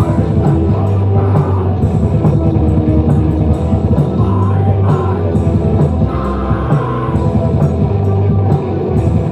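A band playing loud rock music live.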